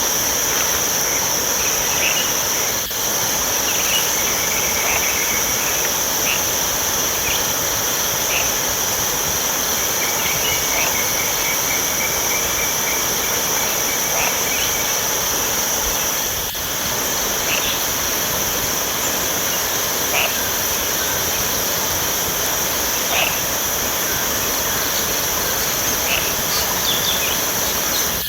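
Forest insect chorus: a steady, high-pitched drone, with scattered short chirps over it.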